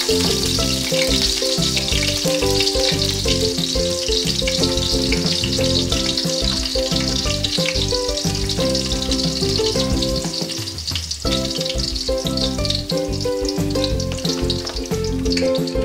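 Minced garlic sizzling steadily in hot oil in a wok, being sautéed until golden brown. Background music with a steady beat plays over it.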